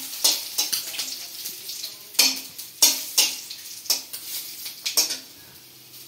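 Metal spatula stirring and scraping in a steel wok, where phutana tempering spices fry and crackle in hot oil. Irregular sharp scrapes and knocks over the sizzle die down about five seconds in.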